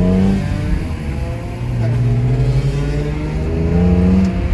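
Car engine accelerating hard, its pitch climbing steadily between two upshifts, one about half a second in and one near the end.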